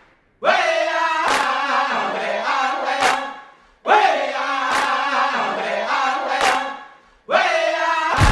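Trailer music: a chanted vocal phrase sung three times, each fading away, with sharp percussion hits at regular gaps.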